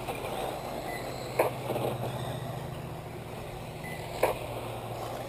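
Radio-controlled dirt-oval modified cars running laps: a steady hum with a haze of noise, broken by three sharp knocks, one at the start, one about a second and a half in and one just after four seconds.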